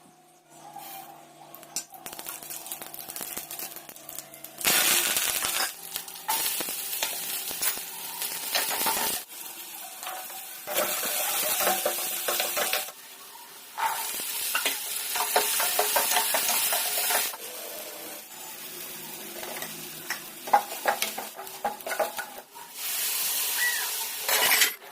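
Food sizzling in hot oil in a cooking pan while a spoon stirs and scrapes it, with small clicks of the utensil against the pan. The sizzling swells in several loud spells of two to four seconds each, with quieter stirring between them.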